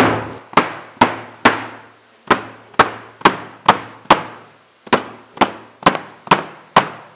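Hammer blows on a hand-held stamp, marking the lettering into blocks of Marseille soap. Sharp strikes come about two a second, in runs of four or five with short pauses between, and each rings briefly.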